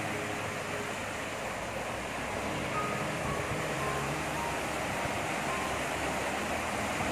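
Shallow rocky stream rushing over boulders and small stepped cascades: a steady hiss of flowing water.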